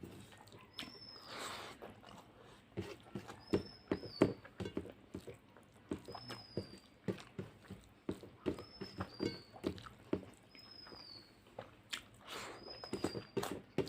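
Close-up chewing and lip-smacking of someone eating rice and fish curry: irregular wet mouth clicks and smacks, several a second, with a couple of soft breaths.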